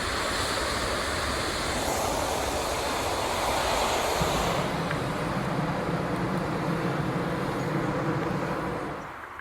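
Hot air balloon propane burner firing with a loud steady hiss. About halfway through the high hiss drops away, leaving a lower steady hum, which fades out at the end.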